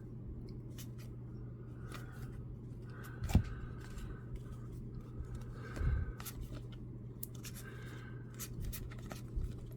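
Baseball trading cards being handled and slid against one another: light scraping and rustling with small clicks, and two soft knocks, about three and a half and six seconds in. A low steady hum runs underneath.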